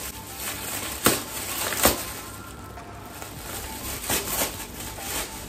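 Silver foil gift wrap crinkling and tearing as a present is pulled open by hand, with sharp crackles about a second in, again just before two seconds, and a cluster of them around four seconds. Background music runs underneath.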